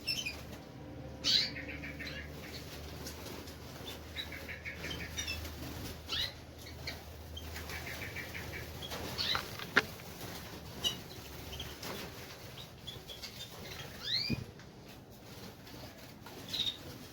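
Aviary finches, canaries and goldfinches, giving scattered short chirps and two brief rapid trills, with wings fluttering and a few sharp clicks.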